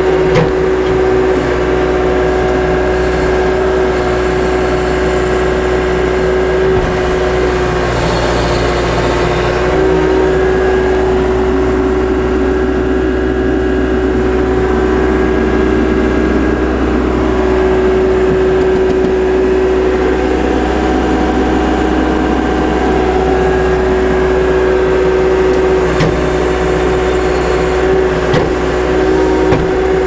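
Cat 297C compact track loader's diesel engine running steadily, heard from inside the operator's cab, with a constant tone riding over the engine rumble.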